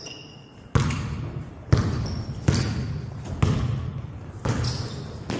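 A basketball being dribbled on a hardwood gym floor: six sharp bounces about a second apart, each ringing briefly in the hall, with short sneaker squeaks at the start and about two seconds in.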